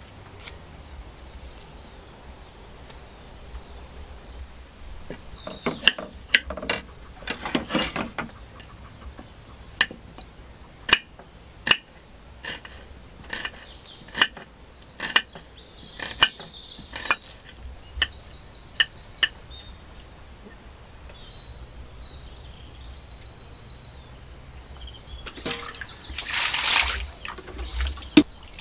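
A kitchen knife slicing a small red onion on a ceramic plate: sharp taps of the blade striking the plate, about one a second for several seconds. A brief rustling scrape near the end.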